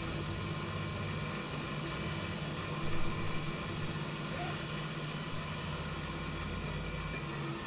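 Lathe-mill combo under CNC control at the end of a milling program, its motors giving a steady hum with a few fixed tones. A brief louder patch comes about three seconds in, and a low rumble builds over the last couple of seconds before stopping abruptly near the end.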